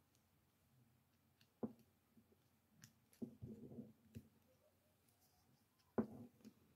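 A few sharp clicks and light taps of a small flat screwdriver against the plastic shell of a folding car remote key and its coin-cell battery, over near silence. The loudest clicks come about one and a half seconds in and near the end.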